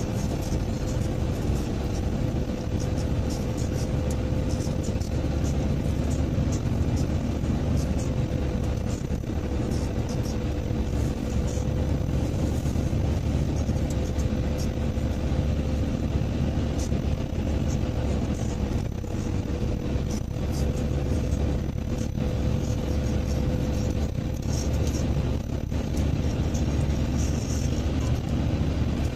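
Steady road and engine noise of a car driving at speed: a low rumble with a faint constant hum.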